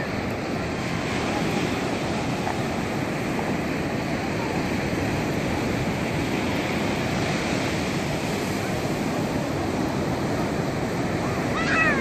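Steady wash of sea surf on a beach.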